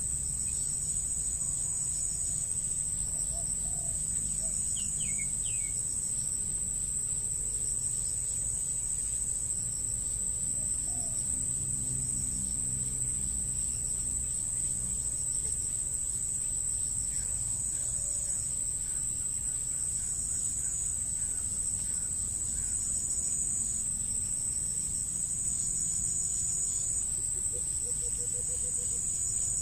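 Insects, crickets or cicadas, keep up a steady high-pitched drone, while a second insect trills in repeated stretches a little lower in pitch. A few faint, brief bird chirps come through now and then.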